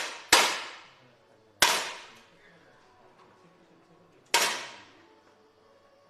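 Three separate 10 m air rifle shots, each a sharp pop with a short echo, about a third of a second in, about a second and a half in, and just past four seconds.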